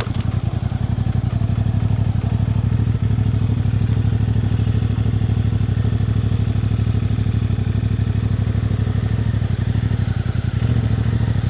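Engine of a motorcycle or off-road vehicle running steadily, a dense, even firing pulse with its note shifting slightly near the end.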